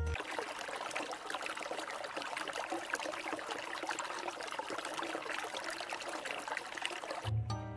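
A cat urinating in a litter box filled with pellet litter: a steady trickle that runs on for several seconds.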